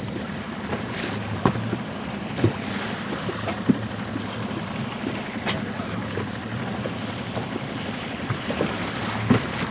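Wind buffeting the microphone over water splashing around a small boat's hull, with a few sharp knocks.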